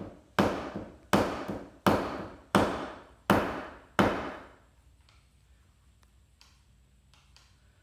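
Mallet striking a 3.5-inch brick chisel six times, about one blow every 0.7 s, cutting through a metal peel-and-stick backsplash tile laid on a concrete block. Each blow rings briefly. After the blows come a few faint light taps.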